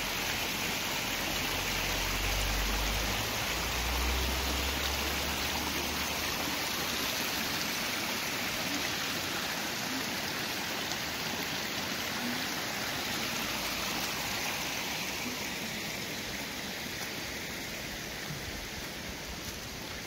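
Small mountain stream cascading over rocks, a steady rushing of water that slowly fades over the last several seconds. A low rumble sits under it for the first few seconds.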